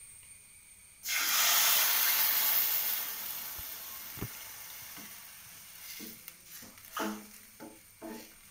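Milk poured into a hot pan of ghee-roasted vermicelli, hissing and sizzling loudly as it hits, starting suddenly about a second in, then fading over the next few seconds.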